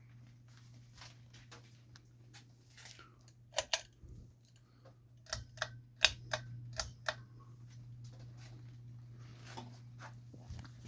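Antique Minerva ceiling fan's motor humming steadily, with a run of sharp, irregular clicks in the middle.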